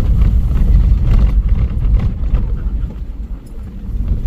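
Vehicle driving: a loud, low rumble of engine and road noise that eases about three seconds in.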